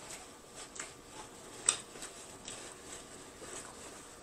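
Close-miked chewing of fried food, with a few sharp wet mouth clicks and crunches, the loudest about one and a half seconds in. Near the end, a soft rustle of a paper napkin wiping the mouth.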